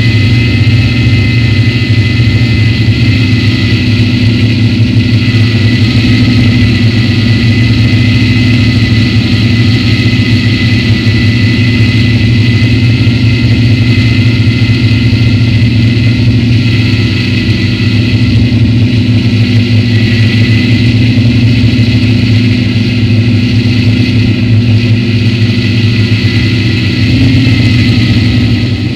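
Multirotor drone's electric motors and propellers buzzing steadily, heard from the drone's own onboard camera, a constant whine with several held pitches that waver slightly near the end.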